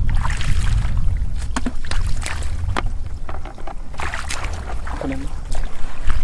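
Footsteps sloshing and splashing through shallow water and mud in a flooded field, an irregular run of wet splashes, over a steady low rumble of wind on the microphone. A brief voice sounds about five seconds in.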